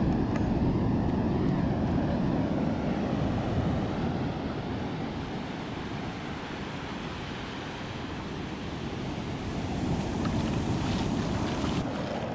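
Surf washing onto a sandy beach, with wind buffeting the microphone. The sound eases off in the middle and grows again near the end.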